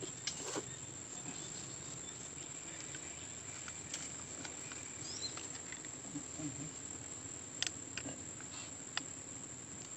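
Insects droning steadily on one high, unbroken tone, with a few faint scattered clicks.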